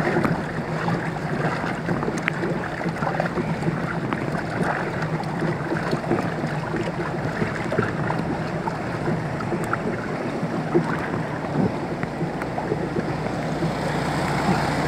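Floodwater sloshing and splashing: a steady rush of water noise dotted with many small splashes, over a low steady hum.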